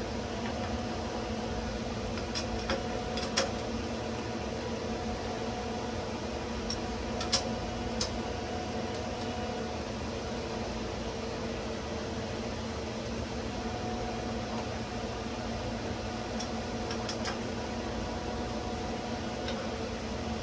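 Steady machine hum with a few fixed pitches. Over it come a handful of sharp metallic clicks and knocks, loudest about three and seven seconds in, as an aluminium block is set into a machinist's wedge vise and the vise's lead screw is turned by hand to clamp and retract the moving jaw.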